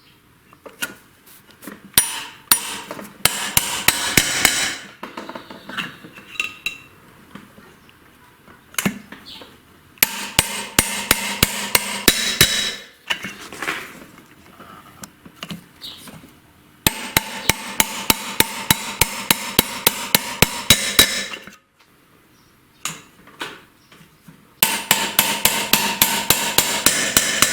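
Valve seat inserts being hammered into a cylinder head that was heated to about 100 degrees for the interference fit: four runs of rapid, ringing metal-on-metal blows, several a second, with short pauses between them.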